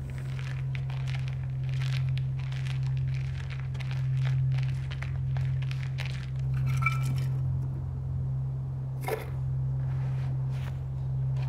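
Footsteps of several people walking together, crunching on a path in an irregular patter, over a steady low hum.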